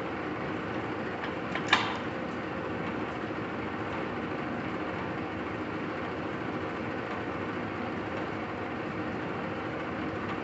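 Large engine lathe (Lodge & Shipley Powerturn, 20 HP motor) running under power, with the steady hum and whir of its headstock gearing and drive. There is one sharp clank about two seconds in.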